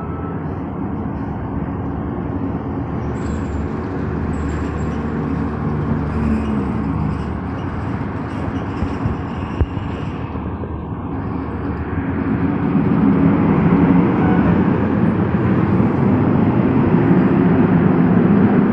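Fire engine's engine running as the truck pulls out of the station bay and drives away, growing louder about twelve seconds in as it moves out onto the street.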